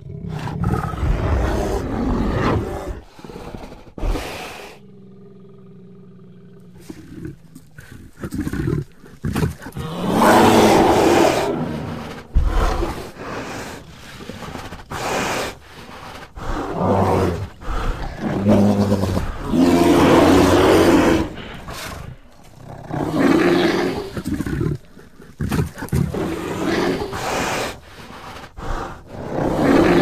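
Sound-designed giant ground sloth (Megatherium) voice, assembled from bear, moose and monster sound-library calls: a series of roars of varying length with short gaps between them. About five seconds in there is a quieter, low drawn-out moan.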